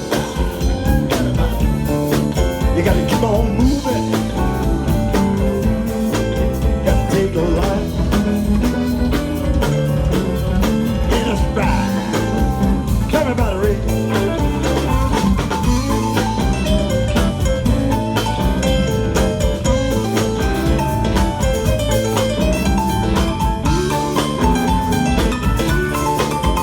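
Live blues band playing an instrumental passage: bending lead notes over a steady beat with bass and drums.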